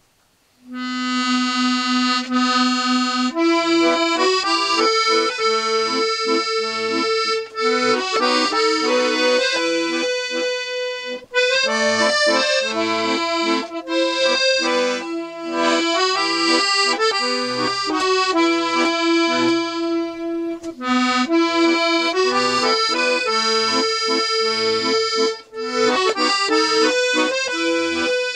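Freshly restored and retuned Galanti piano accordion playing a tune. After a moment's silence a chord is held for a couple of seconds, then a melody on the right-hand keys runs over a rhythmic bass and chord accompaniment from the left-hand buttons, with brief breaks for breath in the bellows.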